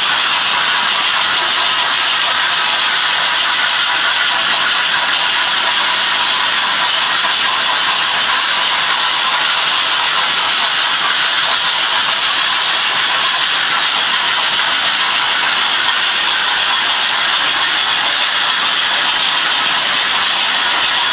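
Märklin model trains running on the layout's track: a steady, even whirring hiss that holds at one level throughout.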